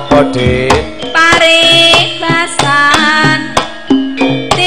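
Javanese karawitan music playing loud: kendang hand-drum strokes under a melody line with sliding, bending notes.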